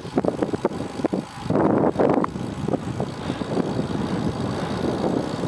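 Wind buffeting the microphone of a camera on a bicycle descending fast down a paved mountain road: a loud, uneven rumble that swells and dips in gusts.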